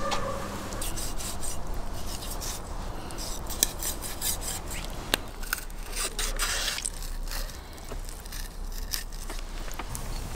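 Large knife cutting and scraping through a raw sturgeon on a wooden cutting board: a run of short scraping strokes with an occasional sharp click of the blade.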